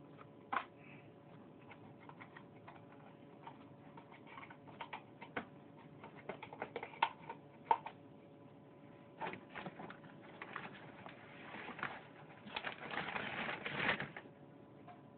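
Red tegu eating live prey: scattered clicks and snaps of its jaws, building near the end to a few seconds of louder crunching and rustling.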